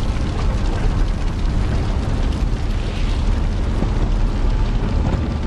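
A steady, deep rumble of a car on the move, heard from inside the cabin.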